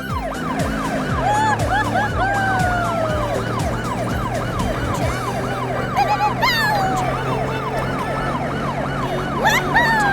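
A siren wailing in rapid rise-and-fall cycles, about four a second, over a steady low hum, with several falling whistle-like glides laid over it.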